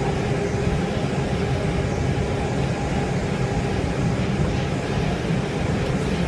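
Seattle light rail car running at speed, heard from inside the car: a steady rumble of the wheels on the track with a faint steady hum over it.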